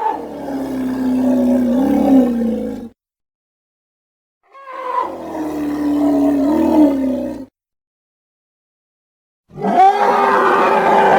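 Animal roar sound effects: two near-identical roars of about three seconds each, separated by silence, each with a pitched cry that dips and rises. A third, harsher roar starts near the end.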